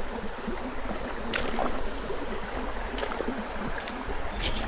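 Creek water running steadily, with a few brief clicks and splashes, the sharpest one near the end.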